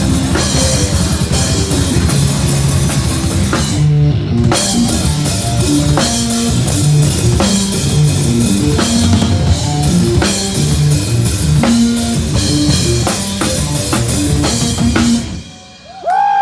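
A band playing loud, fast rock with a pounding drum kit and guitar. It thins briefly about four seconds in and stops abruptly about a second before the end.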